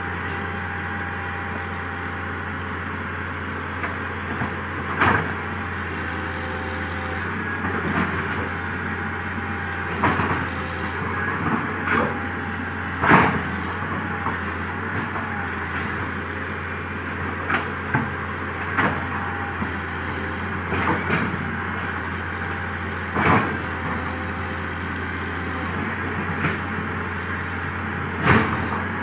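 Komatsu PC200 excavator's diesel engine running steadily, with irregular sharp knocks and clanks every one to five seconds, the loudest about thirteen seconds in.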